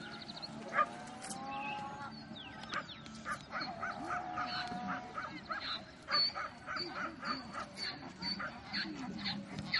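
A long run of short animal calls, about three a second, starting about three seconds in, with high, short bird chirps over them from about six seconds in.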